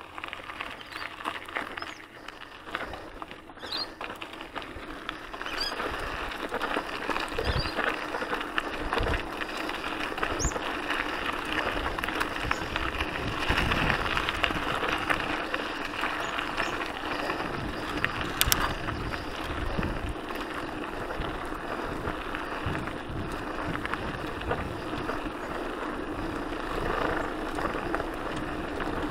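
Mountain bike rolling over gravel and a dirt track: a steady rush of tyre and riding noise with rattle, broken by scattered low thumps from bumps. It gets louder about five seconds in as the bike picks up speed.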